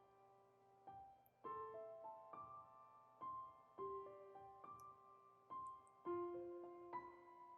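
Soft background piano music: slow single notes and chords that ring and fade, about one or two a second.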